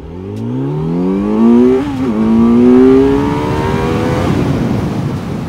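Motorcycle engine at full throttle in a hard standing-start acceleration, its pitch climbing steeply. It upshifts about two seconds in, climbs again, and shifts once more a little after four seconds, with wind noise rising as speed builds.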